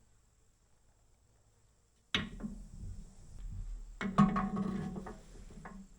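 Hand work on engine parts: near silence, then about two seconds in a sudden knock, followed by a run of clicks and knocks with a brief ringing, densest about four seconds in.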